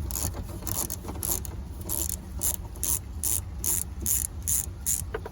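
Socket ratchet with a 10 mm socket clicking in repeated back-and-forth strokes, about two to three a second, loosening the small nuts that hold a trunk lock cylinder.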